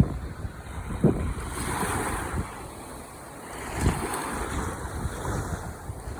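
Ocean surf breaking and washing on the shore, swelling twice, with wind buffeting the microphone in low thumps.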